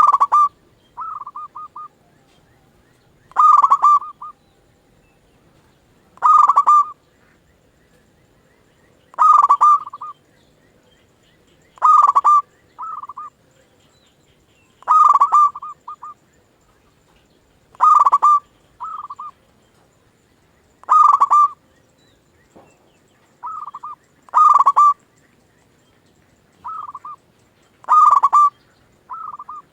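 Zebra dove (perkutut) cooing over and over: a loud call about every three seconds, with softer, shorter calls in several of the gaps between them.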